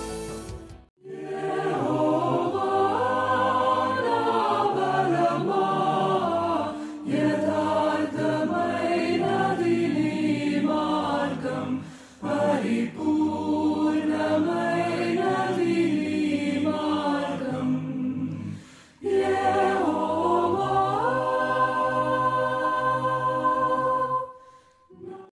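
A choir singing in long phrases, with short breaks about 7, 12 and 19 seconds in.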